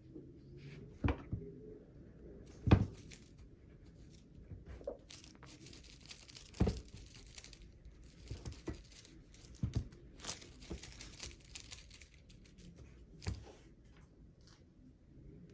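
Rustling and crinkling, with about five sharp knocks spread through it; the knock near the three-second mark is the loudest.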